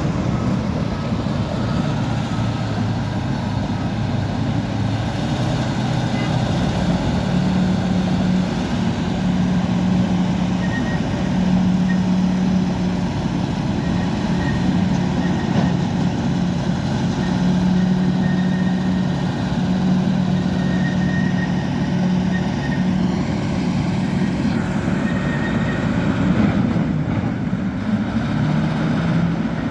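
Bulldozer's diesel engine running continuously, its pitch stepping up and down as the revs change.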